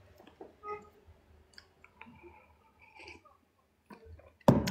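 Faint scattered clicks and small taps in a quiet room, with a few brief faint tones. A loud, sudden sound cuts in near the end.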